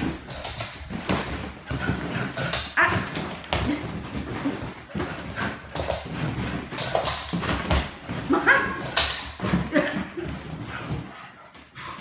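A dog barking and whining in short bursts throughout, with sharp knocks mixed in.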